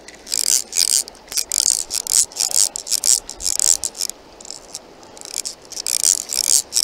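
Fly reel's click-and-pawl drag ratcheting in a run of short, fast buzzes while a hooked fish is played, pausing for about a second past the middle.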